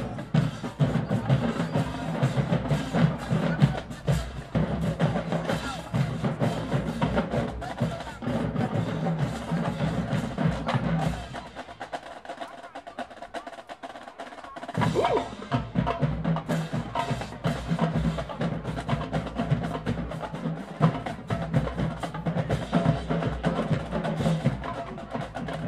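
Marching band drumline playing a rhythmic percussion passage of snare drums and bass drums. About halfway through the low drums drop out for a few seconds, leaving lighter clicking strikes, then the full drumline comes back in.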